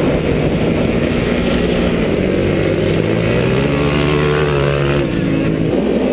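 Vehicle engine running at speed under rough, gusty rumble, likely wind on the microphone. In the middle the engine note climbs in pitch. It changes abruptly about five seconds in.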